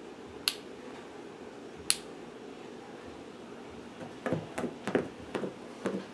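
Two sharp clicks about a second and a half apart: the laser's microswitch toggling as the Wi-Fi camera turns to its limit. Then, near the end, a run of short whirring bursts from the camera's pan-tilt motor moving the laser in small steps.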